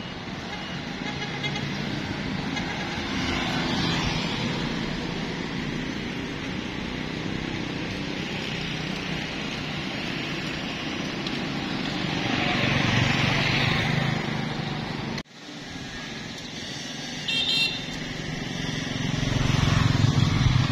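City street traffic: cars and motorbikes passing steadily, with a short horn toot about three-quarters of the way through.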